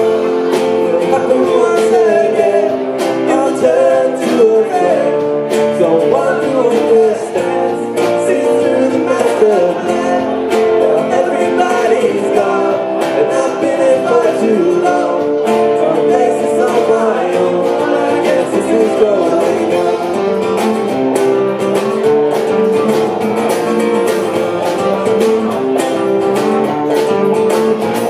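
Live band playing a rock song: strummed acoustic guitar, electric guitar and bass over a drum kit.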